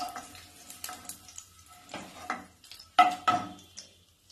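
Wooden spatula scraping and knocking in a kadai of hot frying oil as fried garlic cloves are lifted out into a glass bowl: several sharp knocks with a brief ring, the loudest pair about three seconds in, over light sizzling of the oil.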